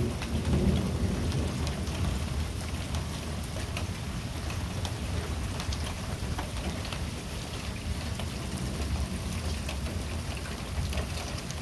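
Thunderstorm outdoors: steady rain with many small drop ticks over a continuous low rumble.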